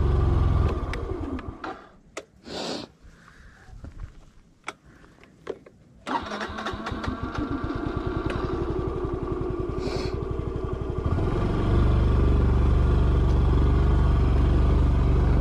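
Yamaha Fascino scooter engine winding down and stopping, a few seconds of near quiet with scattered clicks, then the engine starting abruptly about six seconds in and running, louder from about eleven seconds on.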